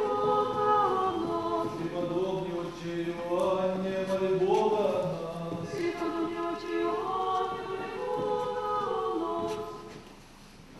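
Unaccompanied choir singing an Orthodox church chant in several voices on long held notes, ending about nine and a half seconds in.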